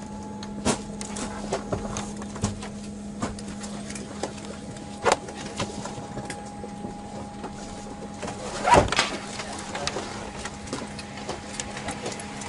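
Boeing 787 cabin while taxiing: a steady hum with two held tones, one low and one higher, under scattered clicks and knocks from the cabin. The loudest knock comes a little before nine seconds in.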